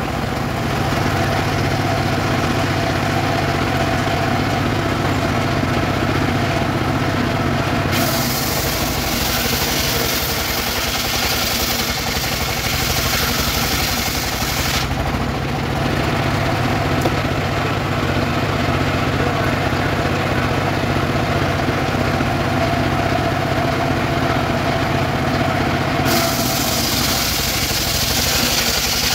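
Engine-driven table circular saw running steadily while its blade rips weru wood lengthwise into boards; a hissing cutting sound comes in about eight seconds in, drops away about halfway, and returns near the end.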